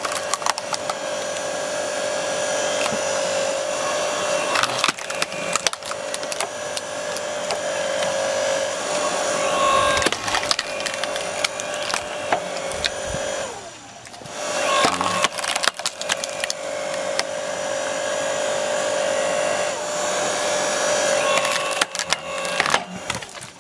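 Ryobi electric hydraulic log splitter working, its motor humming steadily as the ram forces logs onto the wedge, with the wood cracking and splitting in repeated sharp snaps. About halfway through, the motor briefly winds down and then back up.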